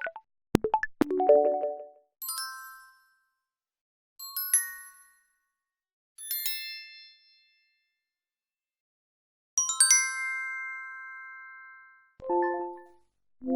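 A series of separate synthesized bell-like chimes, notification ding sound effects. They come one at a time with silence between, each struck and fading away. The one about ten seconds in rings the longest. Short lower electronic blips come near the start and again near the end.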